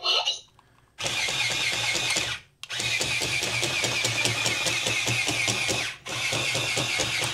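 Disney Spider Bot toy's geared leg motors whirring with a fast rapid ticking as the six-legged robot walks carrying almost a pound of load. The motors run in three stretches, with short pauses about two and a half seconds and six seconds in.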